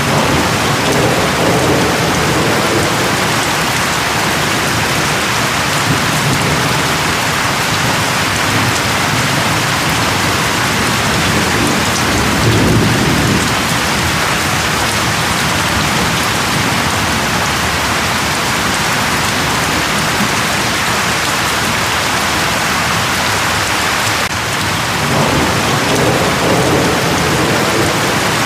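Steady rain falling, with low rumbles of thunder swelling about a second in, around the middle, and again near the end.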